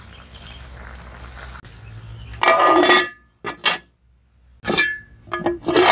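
Metal cookware clattering: a perforated metal skimmer ladle clinking and scraping against a large metal biryani pot and plate. It comes in several short ringing bursts, the loudest about two and a half seconds in.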